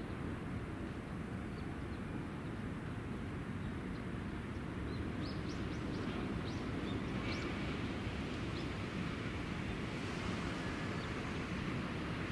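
Steady low rumble of rail and city traffic, with a small bird chirping a dozen or so short high notes in the middle.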